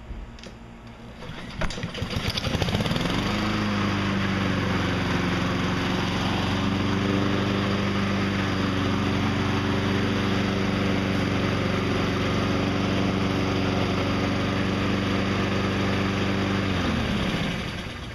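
Honda lawn mower engine starting about two seconds in, then running steadily at full speed. It shuts off near the end, its pitch dropping as it winds down.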